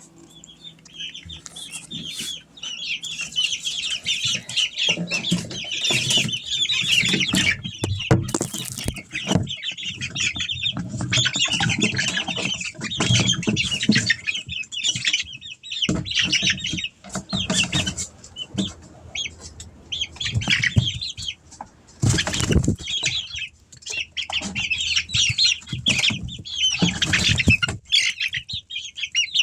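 A group of half-grown chickens cheeping and peeping continuously while flapping their wings in frequent short bursts.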